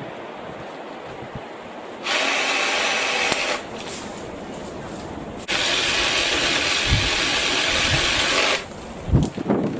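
BLACK+DECKER 18V cordless saw cutting tree branches in two runs, about a second and a half and then about three seconds long, each starting and stopping abruptly. A few sharp knocks follow near the end.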